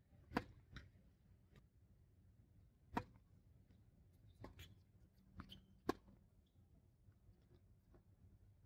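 Tennis ball being struck by rackets and bouncing on a hard court during a rally: three sharp, loud pops roughly three seconds apart, with fainter knocks in between.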